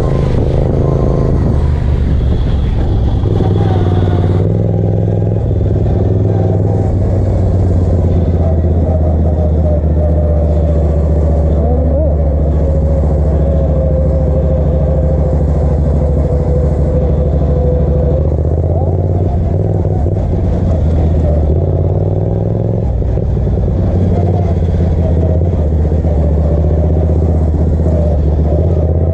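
Racing ride-on lawn mower's engine running hard, heard up close from on board the mower, loud and steady, with its pitch shifting a few times as the revs change.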